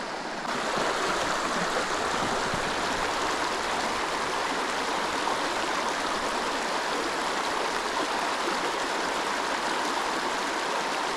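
Creek water rushing steadily, getting louder about half a second in.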